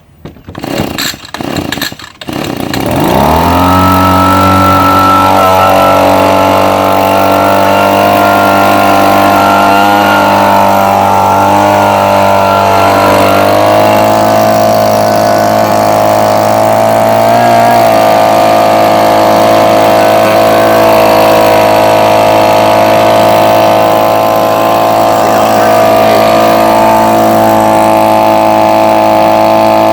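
Echo PB-2520 handheld leaf blower's two-stroke engine sputters briefly, catches about two and a half seconds in and revs up. It then runs steadily at high speed, with a slight change in pitch about halfway through.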